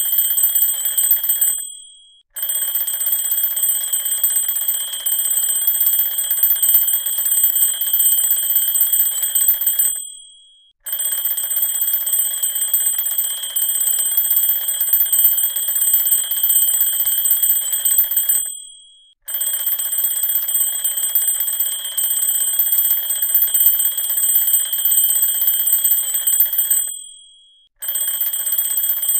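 Alarm clock ringing fast and continuously in bursts of about eight seconds. Each burst dies away into a short pause before the next begins.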